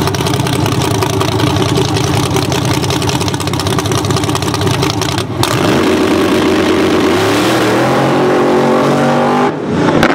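A first-generation Camaro drag car's engine held at high revs on the start line, then launching about five seconds in, its note climbing as the car pulls away, with a brief drop for a gear change near the end.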